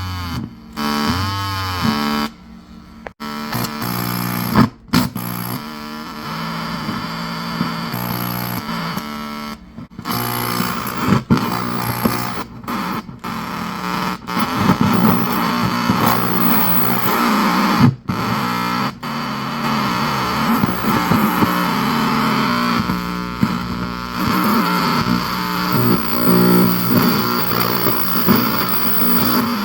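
Circuit-bent vintage PC joystick noise generator producing buzzy, distorted analog electronic noise with stepped tones that jump between pitches and warble near the start. The sound cuts out abruptly several times and comes straight back.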